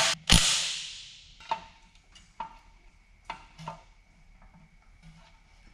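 A cordless power tool runs briefly on a bolt of a Nissan GU Patrol front swivel hub's kingpin cap about a third of a second in, and its noise fades over about a second. A few light metallic knocks and clicks follow as the parts are handled.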